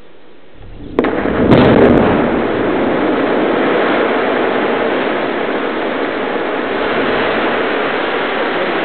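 Quarry blast in limestone and dolomite rock: a low rumble about half a second in, a sharp crack at about one second and a louder blast just after. It is followed by a long steady rush of noise as the blasted rock and dust come down the face.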